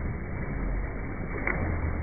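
Swimmers splashing and churning the water in a pool, over a low rumble, with one short sharp click about one and a half seconds in.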